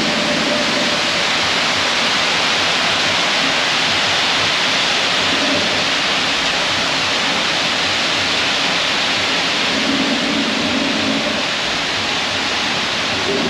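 Concrete mixer truck running during a concrete pour: a steady, loud rushing noise, with an engine hum that comes in and fades a few times.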